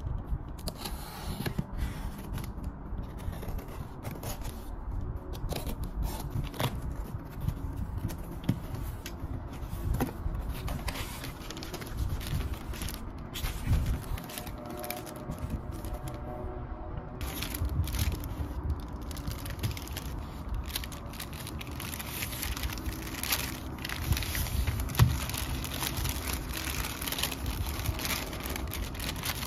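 Cardboard parcel being opened by hand: a pen-style cutter scraping through the packing tape, then the box flaps pulled open and paper packaging rustled, torn and crinkled, with many small clicks and knocks.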